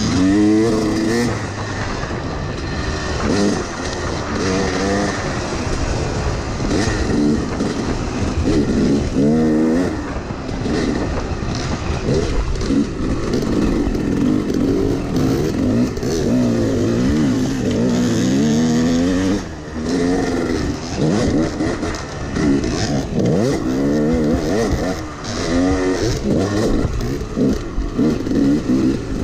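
Yamaha YZ250X two-stroke dirt bike engine under way, revving up and dropping back over and over as the rider works the throttle and shifts through the gears.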